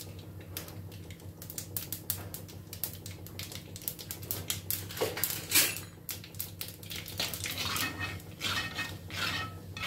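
Mustard seeds popping and spluttering in hot oil in a clay cooking pot, a fast irregular crackle of sharp clicks. There is one louder clatter about five and a half seconds in, and near the end a steel ladle stirs against the pot.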